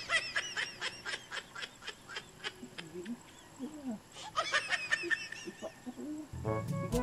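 Birds chirping in quick, high twitters, in two bursts, with a few lower calls between them. Background music comes in near the end.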